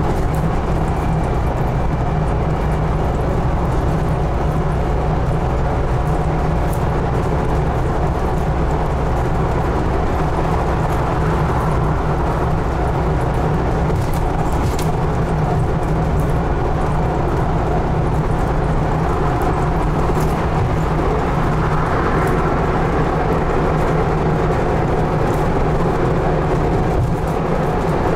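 Scania N280UD double-decker bus under way, heard from the rear of the upper deck: a steady low engine drone mixed with road and body noise.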